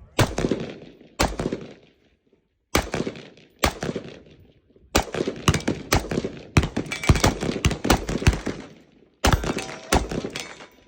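Rifle shots fired one after another, about a dozen at uneven intervals, some close together, each sharp crack followed by a short echoing tail.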